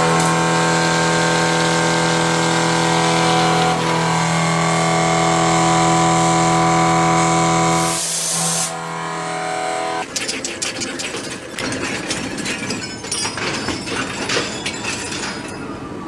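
A machine tool running with a steady, even whine for about eight seconds, broken by a short hiss. Then, from about ten seconds in, irregular crackling and clicking, typical of metal cutting.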